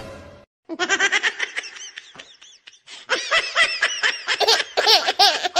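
A person laughing in quick runs of short syllables that rise and fall in pitch. It starts about a second in, eases off briefly, then grows louder and denser near the end.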